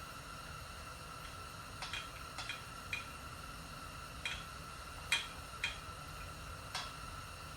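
Scattered sharp metallic clicks and clinks from hand tools, about eight in all at irregular intervals, as bolts on a dirt bike engine are fitted and torqued.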